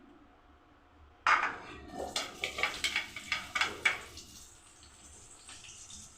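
Metal spoon clanking and scraping against a frying pan, starting suddenly about a second in with a quick run of knocks for about three seconds, while onions fry in oil. The oil's faint steady sizzle carries on after the knocks stop.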